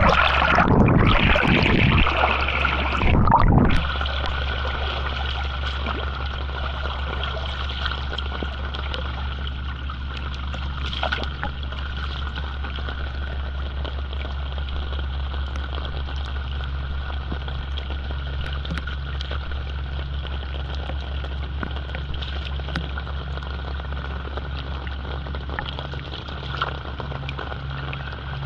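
Steady low motor hum with an even hiss of water. The first few seconds are louder and busier, then the hum holds steady.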